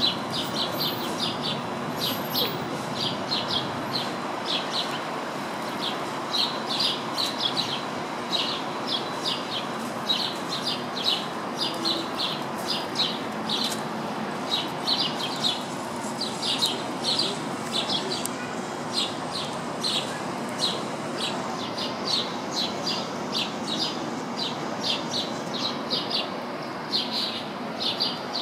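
House sparrows chirping continuously, short high chirps a few times a second, over a steady background noise.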